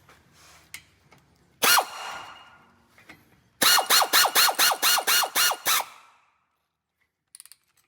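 Cordless power tool driving a brake caliper bolt home. One short run with a fading spin-down, then a quick string of about eleven trigger blips, roughly five a second, each with a falling pitch, snugging the bolt without over-tightening it.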